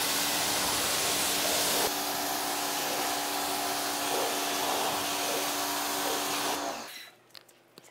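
Electric pressure washer running steadily, its motor humming under the hiss of the water jet spraying onto a car's body panels to rinse off soap. It cuts off about seven seconds in, leaving a few faint drips.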